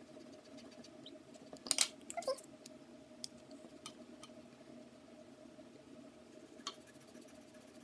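Paper Mate Eraser Mate pen's white eraser rubbing ink off paper: faint scratchy scuffs, the loudest cluster about two seconds in, a few lighter ones later, over a faint steady hum.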